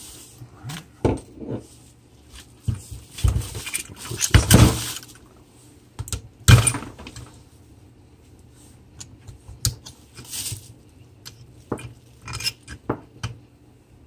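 Pliers and small metal engine parts clicking and clinking as the wrist-pin clip is worked out and the piston is taken off a Zeda 80 two-stroke bicycle engine. Irregular sharp clicks, with a longer scraping rustle about four to five seconds in.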